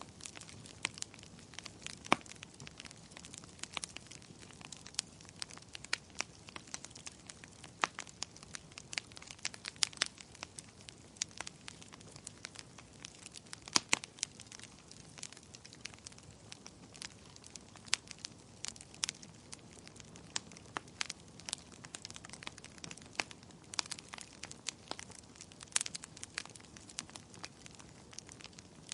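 Fire crackling in a fireplace: a steady, irregular stream of sharp pops and snaps over a faint hiss, with the loudest pops about two seconds in and again about halfway through.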